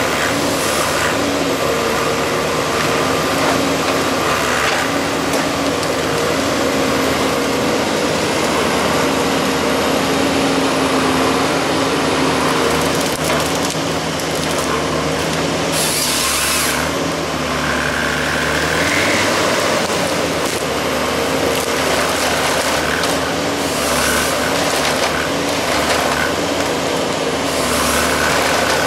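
Valmet 911.3 forest harvester's diesel engine and hydraulics running hard while its SP 561 LF harvester head fells spruce and feeds the stems through, the delimbing knives stripping branches with cracking and swishing. A brief loud burst of saw-like noise comes about halfway through, and the engine hum is steady underneath.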